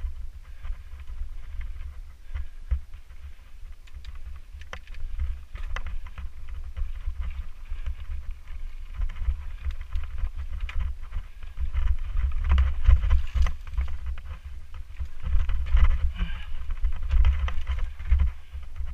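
Mountain bike riding a dirt singletrack: tyres crunching over gravel and the bike rattling, under a low rumble of wind on the camera's microphone. It grows louder about two-thirds of the way through.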